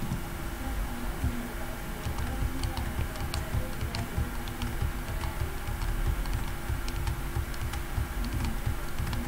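Computer keyboard clicking: a run of quick, irregular keystrokes as the same text is pasted over and over.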